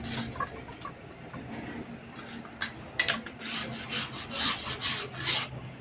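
Steel truck leaf-spring leaves scraping against each other and the anvil as they are slid and shifted by hand. Light clicks at first, then a quick run of scraping strokes, about four a second, in the second half.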